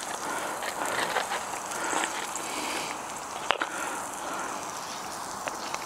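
Knife and fork clicking and scraping on a plate as pork belly is cut, over a steady hiss, with one sharper click about three and a half seconds in.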